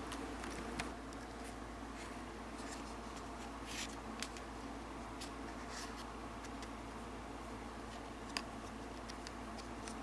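Plastic Olaf spinning top spinning on a hard table, its tip giving a faint scratchy rub with scattered light clicks as it wobbles. A faint steady hum lies underneath.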